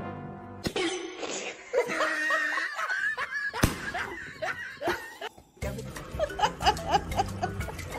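People laughing, with a balloon bursting in one sharp pop about three and a half seconds in. Background music plays briefly at the start and comes back near the end under more laughter.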